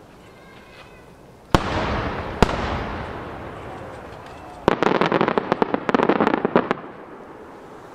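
12-inch fireworks shells bursting overhead: two loud booms about a second apart, each trailing a long rolling echo, then about two seconds of rapid crackling.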